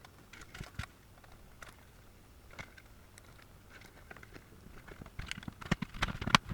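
Scattered small clicks and taps from handling a field monitor's plastic casing and screen connector during reassembly, sparse at first, then a quicker run of louder clicks near the end.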